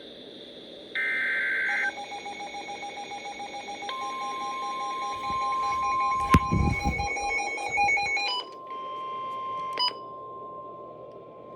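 Emergency Alert System warning on NOAA Weather Radio: the end of the screeching SAME data header, then a receiver's fast pulsing alarm beep and, from about 4 s in, the steady weather radio warning alarm tone. A sharp thump comes about 6 s in, and the beeping stops a little past 8 s while the steady tone runs on.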